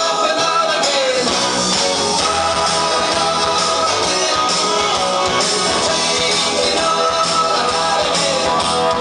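Rock-and-roll dance music with guitar, played steadily through a party DJ sound system.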